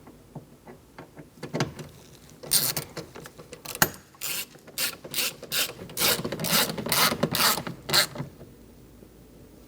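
Hand socket ratchet clicking in short strokes as a door handle bolt is tightened down. The clicks start about two and a half seconds in and stop around eight seconds, about three a second.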